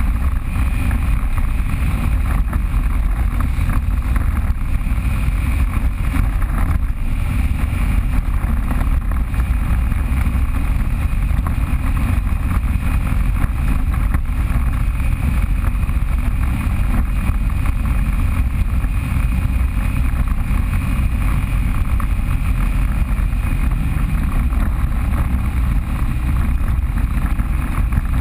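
Off-road vehicle engine running steadily under way, a continuous low rumble with no clear revving.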